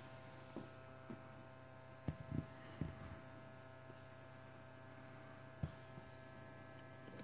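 Faint steady electrical hum from a switched-on Bluetooth karaoke microphone with a built-in speaker, with a few soft knocks and clicks as it is handled and its buttons are touched, most of them about two to three seconds in and one more near six seconds.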